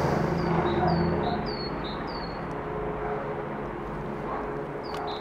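Steady drone of a helicopter's engine and rotors that eases off after about a second and a half. Over it, a small bird repeats short, high, down-slurred chirps about twice a second, pauses, and starts again near the end.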